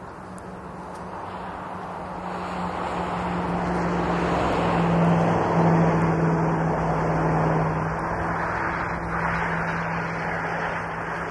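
A road vehicle passing on the highway: a steady low hum and tyre hiss that swell to a peak about five or six seconds in, then ease off.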